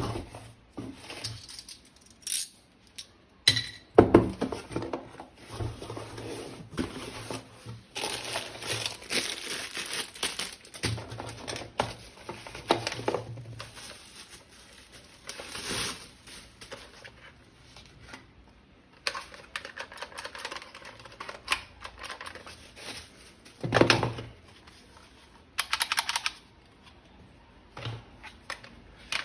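Unboxing handling noise: plastic packaging crinkling and tearing, with scattered clicks and knocks of plastic toy-gun parts being handled. A few louder knocks stand out, one near the start and two near the end.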